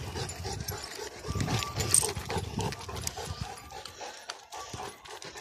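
A large dog panting quickly and steadily, about four pants a second, over a low rumble that drops away about four seconds in.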